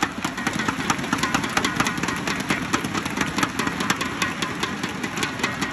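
Arena crowd beating inflatable cheer sticks together: a rapid, uneven clatter of many sharp claps.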